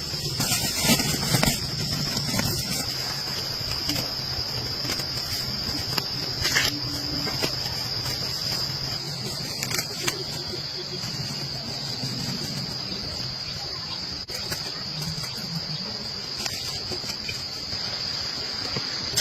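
Steady insect chorus, a continuous high-pitched trill like crickets, with a few scattered clicks.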